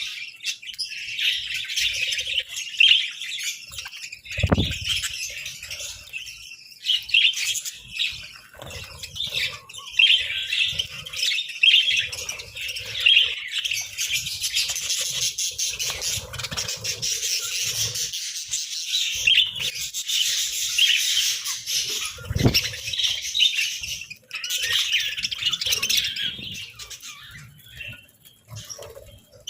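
A flock of budgerigars chirping and chattering nonstop, with two short low thumps, about four seconds in and again past twenty seconds.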